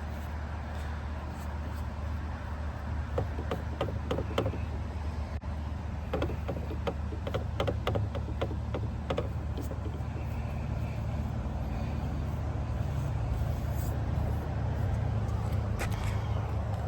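Light clicks and taps of small plastic keycaps being handled, in two short runs a few seconds in, over a steady low rumble.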